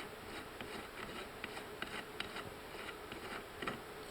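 Faint, irregular ticking and scraping of a steel jam nut being spun off the threaded shaft of a Cub Cadet Ross steering gear assembly, a few clicks a second.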